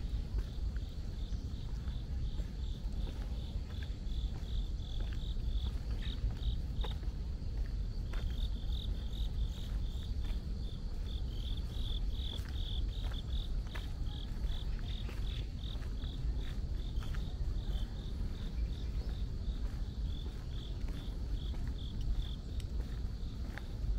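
A cricket chirping in a steady, regular rhythm of short high notes, about three a second, breaking off briefly about seven seconds in and stopping shortly before the end. A steady low rumble runs underneath.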